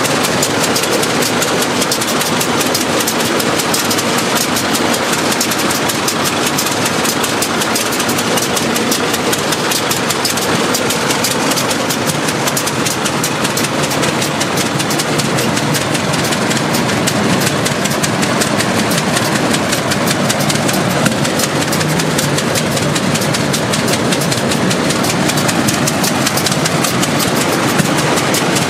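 Hart-Parr 28-50 tractor's four-cylinder engine running steadily at idle, heard close up from the operator's platform.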